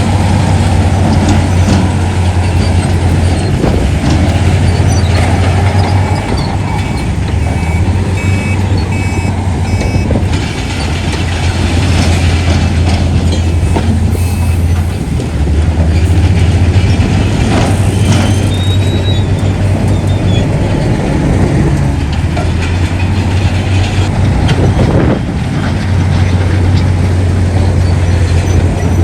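Heavy diesel earthmoving machinery running with a loud, steady engine drone that dips and swells in level. From about six to ten seconds in, a reversing alarm beeps about six times.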